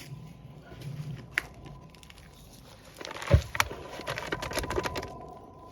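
A worm bin and its bedding being handled: a single click, then a thump about three seconds in followed by a couple of seconds of crackling and rustling as the bedding is moved.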